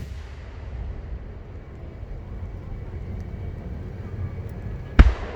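Aerial firework shell bursting with a single sharp bang about five seconds in, echoing away afterwards. Before it, a low rumble of the display and the fading echo of an earlier burst.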